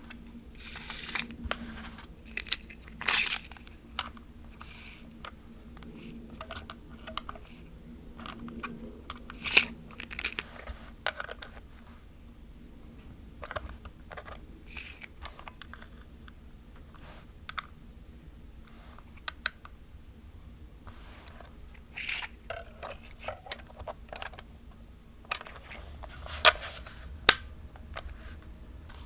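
Plastic film camera being handled by hand: irregular light clicks, taps and short rubs of fingers on the hollow plastic body, with a couple of sharper clicks standing out.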